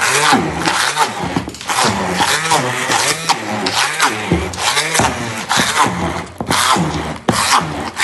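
Electric hand mixer running through thick, soft black soap paste in a stainless steel bowl, its motor pitch rising and falling over and over as the load on it changes.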